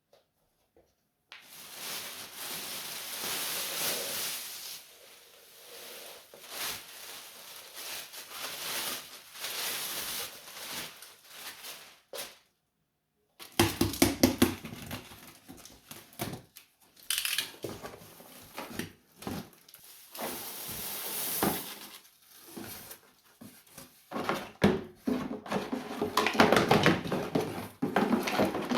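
Rustling and light clattering of household objects being handled, with many small knocks and clicks and a sudden dead stop of a second or so partway through.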